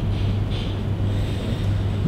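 Room tone in a pause of a talk: a steady low hum with faint hiss above it.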